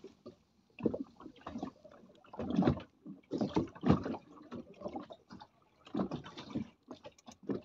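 Water slapping and sloshing against the hull of a small anchored boat in uneven surges, with a few sharp taps near the end.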